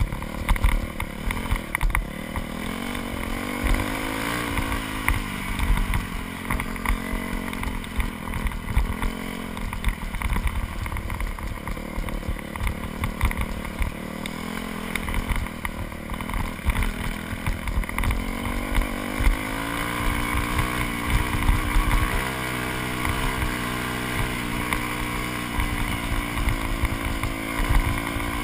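2001 Yamaha YZ426F's four-stroke single-cylinder engine running under way, its pitch rising and falling again and again as the throttle is rolled on and off. Wind buffets the microphone in low gusts throughout.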